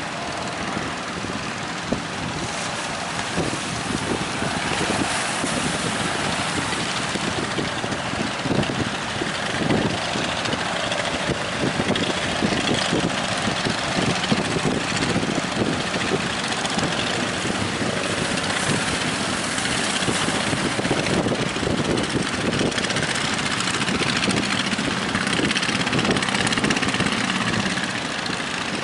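A fishing boat's engine running steadily at sea, mixed with strong wind and the rush and slap of waves.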